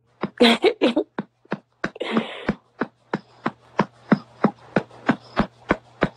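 Steady rhythmic patting on a baby's back, about three soft pats a second, with a brief voice sound near the start.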